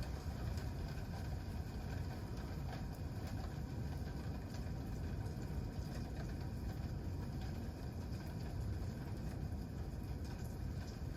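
Wood campfire burning: a steady low rumble with a few faint scattered crackles.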